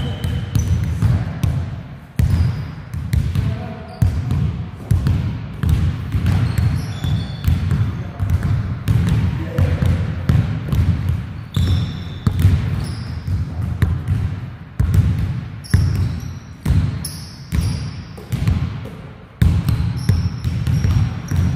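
Basketball being dribbled and bounced on a hard court, a sharp thud about twice a second, with short high squeaks scattered between the bounces.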